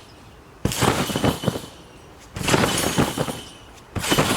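A trampoline being bounced on: three landings about a second and a half apart, each a burst of rattling from the springs and mat.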